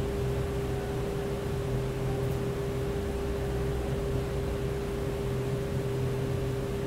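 A steady machine hum with one constant mid-pitched tone over a low drone and even hiss, unchanging throughout.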